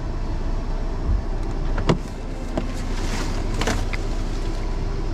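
Vehicle engine idling steadily, with a few sharp knocks or clicks over it, the sharpest about two seconds in.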